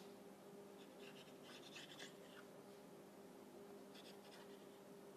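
Faint scraping of a knife blade drawn through rolled-out dough against the tabletop, in short strokes about a second in and again near four seconds, over a steady hum.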